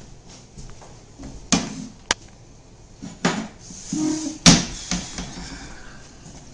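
Wooden kitchen cupboard doors and drawers being opened and shut. A few sharp knocks and clatters come over the seconds, and the loudest bang is about four and a half seconds in.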